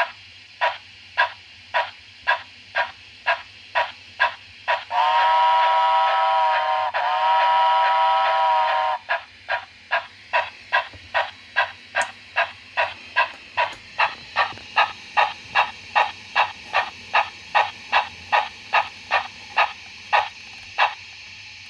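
Märklin 37080 model locomotive's digital sound playing steam-engine chuffs through its small loudspeaker, the puffs quickening from about two to about three a second. About five seconds in, two long chime-whistle blasts sound back to back, the loudest part.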